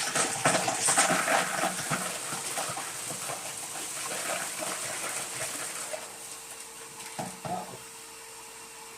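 A 5-gallon bucket-lid wet/dry vacuum running with a steady whine, and irregular crackling as debris is sucked up through the hose over the first six seconds, thinning out near the end.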